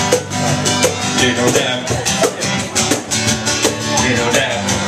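Live band playing a song's instrumental intro: guitar over a steady percussion beat.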